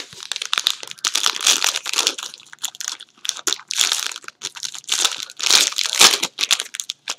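Plastic card-pack wrapping crinkling as it is handled and opened, an irregular run of crackles with short pauses about three seconds in and near the end.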